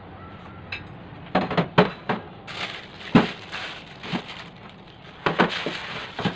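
Thin plastic bags crinkling and rustling as thawed meat in them is handled, with several sharp knocks of ceramic plates set down on a stainless-steel counter, the loudest about three seconds in.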